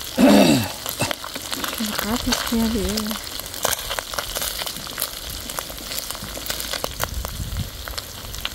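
Small fish and dried red chillies frying in hot oil in a steel wok, a steady sizzle with many small crackling pops as they are stirred with a green stalk.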